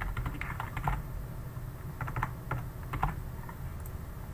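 Typing on a computer keyboard: two quick runs of keystrokes with a pause of about a second between them, as a file name is typed in.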